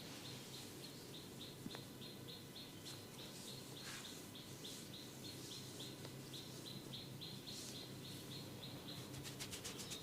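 A small bird chirping over and over, one short high note about three times a second, over a faint low hum.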